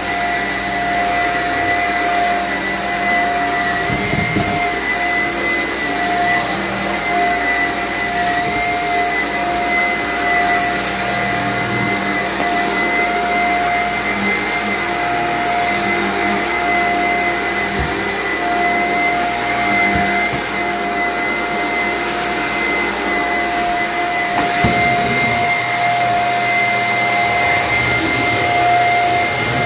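Bagless upright vacuum cleaner running steadily as it is pushed over a rug and tiled floor, its motor holding a steady whine over the rush of air.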